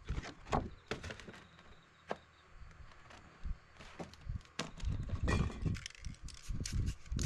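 Sheets of paper being slid and pressed by hand across a painted board, with irregular taps, knocks and rustles.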